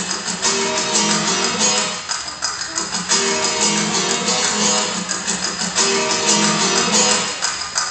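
Music with a strummed guitar, playing as accompaniment to a circus juggling act.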